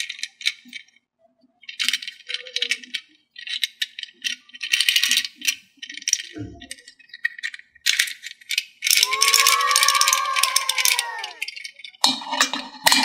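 Bursts of plastic rattling and clicking as a hard plastic toy sea reptile is handled and turned over, with a pitched squeaky sound that rises and falls about nine seconds in.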